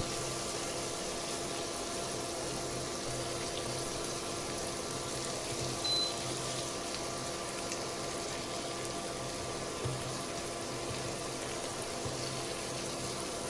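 Shrimp sizzling steadily in melted butter in a stainless steel frying pan, over a faint steady hum.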